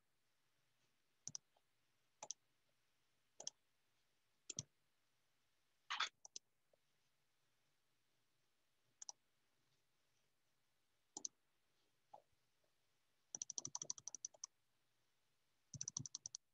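Faint, short, sharp clicks, single ones spaced about a second apart, then two quick rapid runs of clicks near the end, over near silence.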